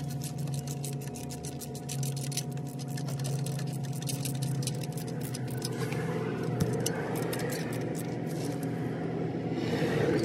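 Rapid clicking of a ratcheting wrench turning a rear brake caliper guide-pin bolt, which stops about six seconds in. A steady low hum runs underneath.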